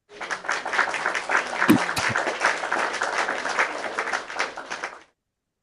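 A group clapping and applauding for about five seconds, starting and cutting off abruptly like a dropped-in applause sound effect.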